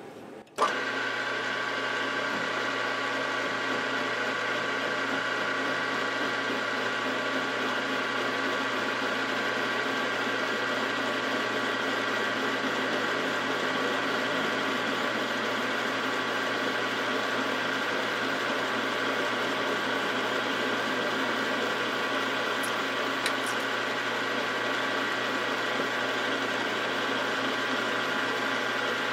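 Milling machine running steadily with a gear whine, starting abruptly about half a second in, while a boring head takes a cut in an aluminium base casting.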